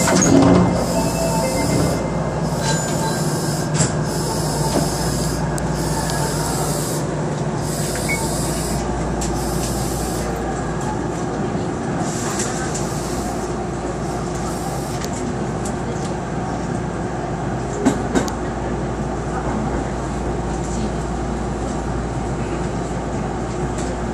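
Osaka Municipal Subway 66 series electric train pulling away from a station and running along the line, heard from the cab: steady motor and wheel-on-rail noise. A high sound comes and goes over the first ten seconds, and two sharp clacks come about eighteen seconds in.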